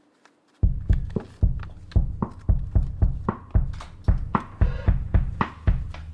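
Background music with a steady, heavy drum beat, coming in about half a second in.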